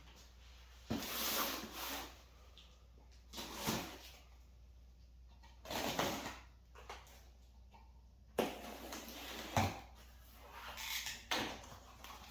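Packaging being handled and rummaged through: a few short bursts of rustling, with some sharp knocks and clicks.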